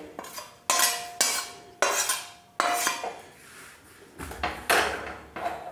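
Slotted metal ladle knocking and scraping against an aluminium kadhai as roasted sesame seeds are tipped onto a steel plate: four ringing metallic clanks in the first three seconds. Later the kadhai is set back down on the gas stove's burner grate with a further clatter.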